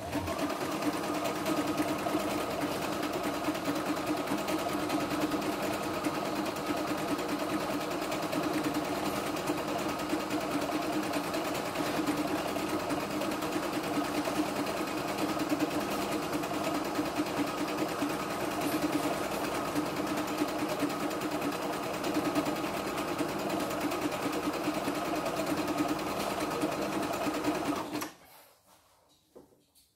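CNY E960 portable embroidery-sewing machine running steadily in sewing mode, stitching one of its built-in decorative pattern stitches. It stops suddenly about two seconds before the end.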